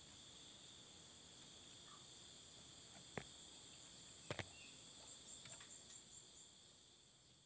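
Near silence: faint steady high-pitched chirring of crickets, with a few soft clicks about three and four seconds in.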